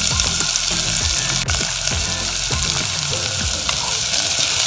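Chopped onion sizzling in hot oil with fried mustard and cumin seeds in a saucepan, stirred with a slotted spatula that scrapes and knocks against the pan.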